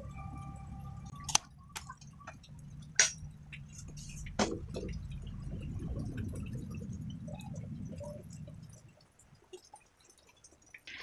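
Metal tools and a square steel tube being handled at a bench vise: three sharp knocks and clicks about a second and a half apart, with smaller ticks, over a low rumble that fades near the end.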